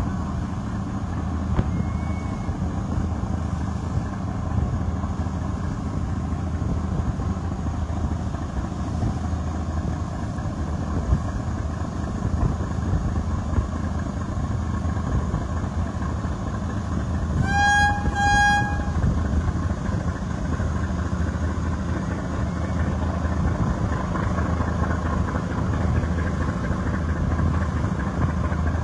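Steady drone of a river boat's engine with the rush of water and wind. About two-thirds of the way through, a horn gives two short blasts in quick succession.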